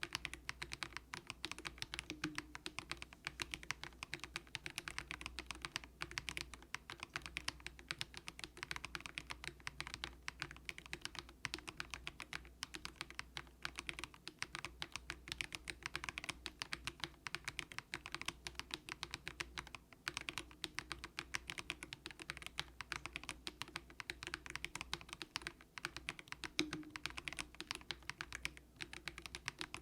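Continuous fast typing on a Monstargear Ninja87 plastic-case mechanical keyboard with light, low-force Haimu Sea Salt switches: a steady stream of keystroke clacks, several a second.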